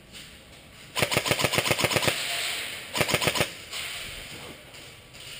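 Airsoft rifle firing on full auto: a rapid burst of about a second, about ten shots a second, then a shorter burst of about five shots, with echo after them.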